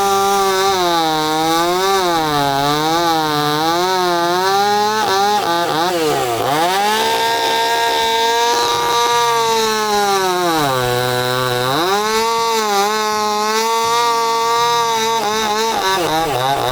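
Chainsaw running and cutting into a wooden log. Its engine pitch wavers up and down with throttle and load, dropping lower twice, about six and eleven seconds in.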